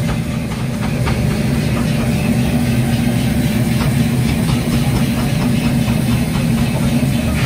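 Stream of water pouring onto a red-hot forged steel sledgehammer head to quench it, the water boiling off the hot steel in steam with faint scattered ticks, over a steady low machine drone.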